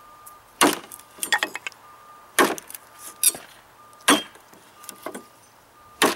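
Cold Steel Bushman knife blade chopping into a 2x2 wooden board: four hard chops, about one every second and three-quarters, each with a few light clicks of wood after it.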